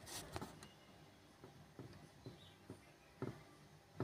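A handful of faint, scattered plastic clicks and taps from ink cartridges being handled at the inkjet printer's empty cartridge carriage, the last two a little louder.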